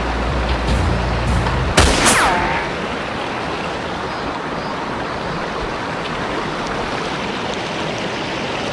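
Steady rush of a shallow mountain stream running over rocks. A low rumble fills the first couple of seconds, and a single sharp snap comes about two seconds in, followed by a brief falling tone.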